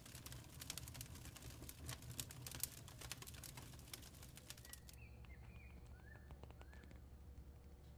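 Faint crackling of a wood fire, a dense run of small snaps and pops that stops about five seconds in. A few short bird chirps follow over a low steady hum.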